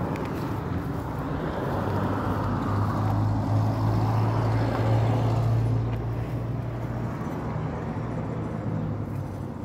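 Steady low engine drone with a rumbling background; a low hum swells for a few seconds in the middle, then eases.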